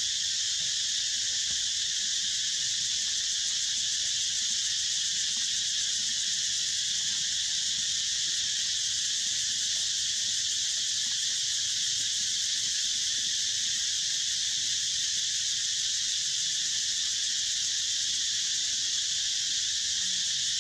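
Insect chorus in the trees: a steady, high-pitched hiss that goes on without a break or change.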